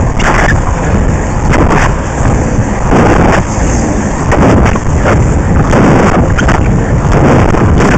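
Wind buffeting the microphone of a skater's camera at speed, in uneven gusts, over the rolling of inline skate wheels on asphalt.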